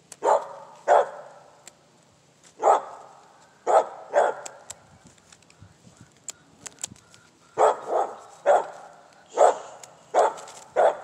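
An animal calling repeatedly: about a dozen short, loud calls, several in quick pairs, with a few sharp clicks in between around the middle.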